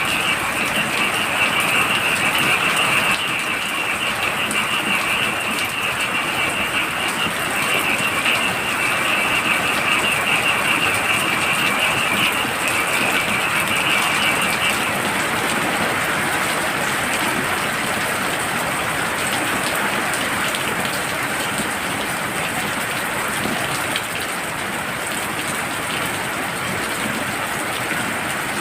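Heavy rain falling steadily, with a high, continuous chorus of frogs calling over it that stops about halfway through.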